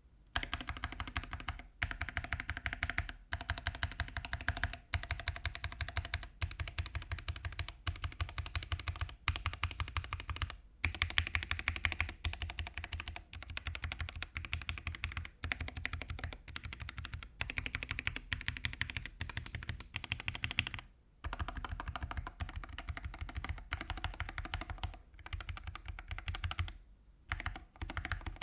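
Continuous fast typing on a mechanical keyboard fitted with Akko Starfish linear switches: a dense run of key clacks with short breaks every few seconds.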